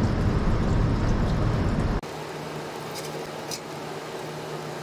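Floodwater running from a garden tractor's engine crankcase drain and splashing into a drain pan: the crankcase is full of water from being submerged. About two seconds in the sound cuts off sharply, leaving a quieter steady hum with a couple of light clicks.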